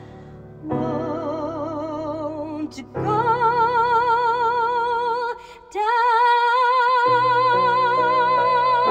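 A woman singing in a classical, operatic style with wide vibrato over steady instrumental accompaniment. She sings two phrases, breaks briefly about five seconds in, then holds one long high note while the chords beneath it change.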